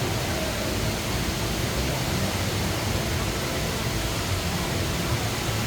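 A very large indoor waterfall, with water falling and splashing as a steady, even rushing noise.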